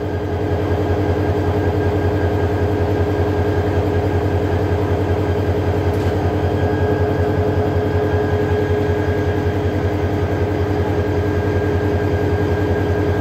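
Diesel locomotive engine running at close range: a steady deep drone with a steady hum above it, getting slightly louder about half a second in.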